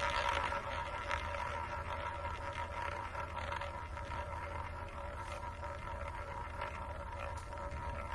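Large roulette ball rolling around a spinning roulette wheel: a steady whirring hum with faint ticks that slowly gets quieter.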